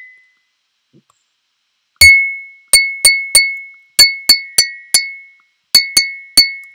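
Real-time synthesized impact sounds of a virtual glass cup with a perforated end: about eleven sharp, high-pitched clinks, each ringing briefly and dying away. They start about two seconds in and come in quick, irregular groups, the ring shifting a little in pitch from hit to hit as different points are struck.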